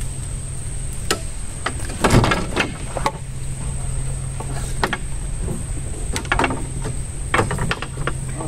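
Scattered knocks and clicks of fishing gear being handled in a wooden boat, louder in a cluster about two seconds in, over a steady low hum and a steady thin high-pitched whine.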